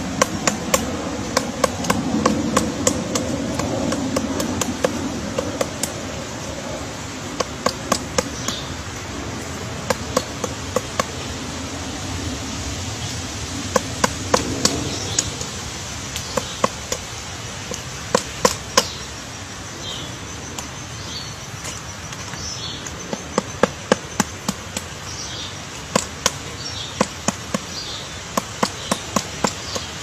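Pileated woodpecker chiselling into a tree trunk, pecking out a large hole: sharp wooden knocks in irregular clusters of a few quick strikes with short pauses between. These are excavating blows that tear out wood, not an even drumming roll.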